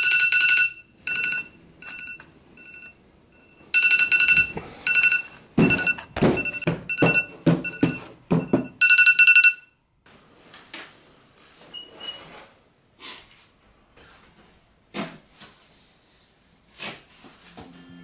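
Smartphone alarm going off in repeated bursts of high electronic beeps, sounding on and off for about ten seconds, with thuds mixed into the later bursts. It then stops, followed by scattered soft knocks and clicks.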